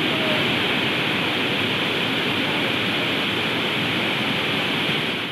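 Waterfall: the steady, even rush of falling water over rock, fading out near the end.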